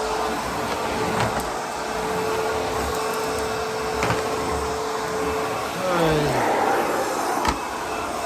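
ProTeam MegaVac vacuum cleaner running with a steady hum and suction noise. About six seconds in, a brief falling whine comes as it gets louder, and there are a couple of sharp knocks.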